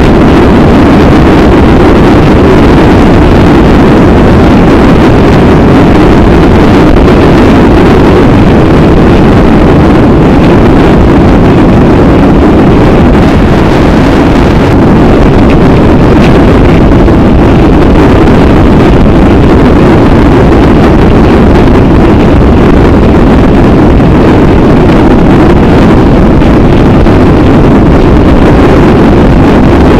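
Motorcycle at steady motorway speed: loud, unbroken wind rush on the microphone mixed with engine and road noise.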